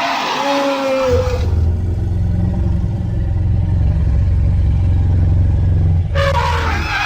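Rogue elephant creature sound effects: the end of a roar with a falling pitch, then a long, low, steady rumbling growl for about five seconds. A new high, screeching roar starts about six seconds in.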